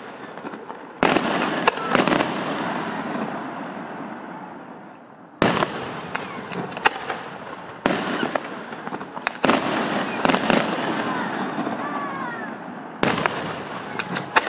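Aerial fireworks display: about ten sharp bangs of shells bursting in the sky, each followed by a long rolling echo that dies away. There is a lull of a few seconds after the first cluster of bangs.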